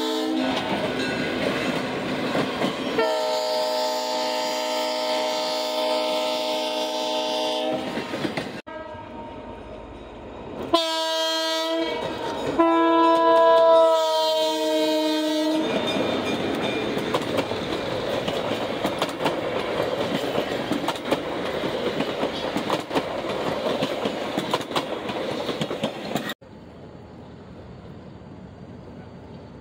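Diesel locomotive's multi-chime air horn sounding, first a long blast, then several shorter ones. It is followed by the rumble of a passing train with wheels clicking over the rail joints.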